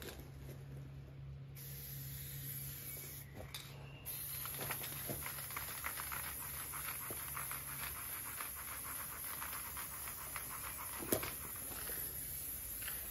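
Aerosol spray paint can hissing as paint is sprayed on a wall, with one sharp click near the end.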